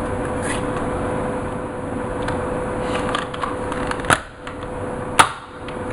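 Hard plastic toy blaster being handled, with a steady rustle and two sharp plastic clicks about four and five seconds in.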